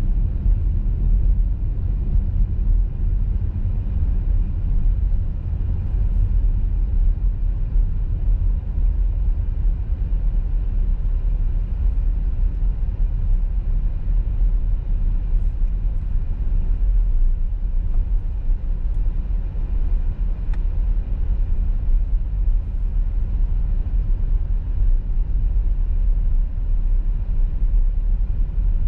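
Steady low rumble of a car driving at motorway speed on a snowy road: tyre and road noise with engine drone, even throughout.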